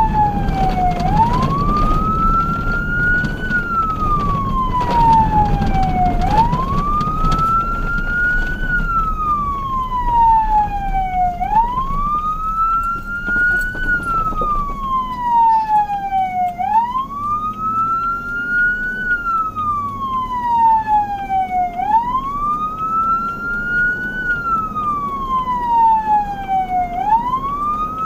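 Emergency vehicle siren sounding a slow wail: each cycle rises quickly, then falls off more slowly, repeating about every five seconds. A low engine and road rumble lies underneath and fades about eight seconds in.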